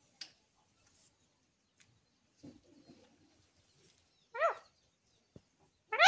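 Ringneck parakeet giving one short call that rises in pitch, about four seconds in, and starting another at the very end; otherwise near quiet with a faint click.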